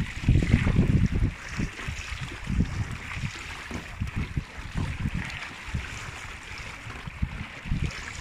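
Water rushing and splashing along a sailing kayak's hull as it runs downwind over choppy water, with gusts of wind buffeting the microphone, heaviest in the first second or so.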